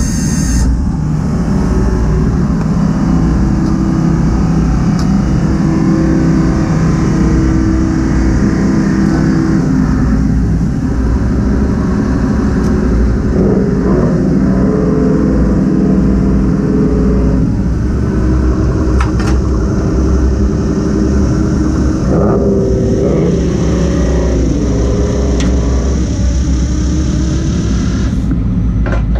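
Fishing boat's engine running steadily at a loud level, its pitch rising and falling a little at times, with a few sharp clanks from deck gear.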